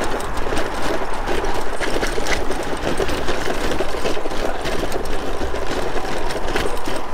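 A bicycle rattling over a rough, bumpy road surface: a fast, unbroken clatter of the tyres and frame being shaken by the uneven paving.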